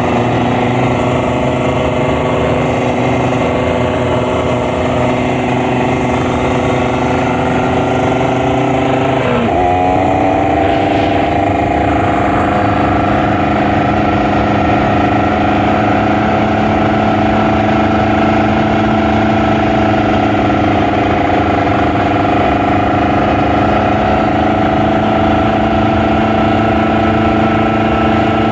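Kawasaki Ninja RR 150 two-stroke motorcycle engine running at a steady pitch. About nine seconds in its pitch dips sharply and climbs back, then holds even at a slightly higher pitch.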